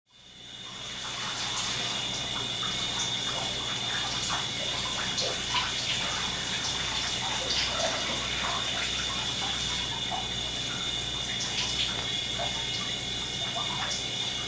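Shower running, the water spraying steadily onto wet clothing with scattered small splashes and drips, fading in over the first second.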